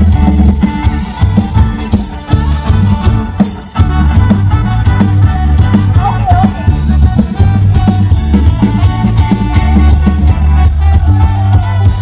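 Live band playing loud, upbeat dance music, with a drum kit and heavy bass keeping a steady beat under guitars and keyboard.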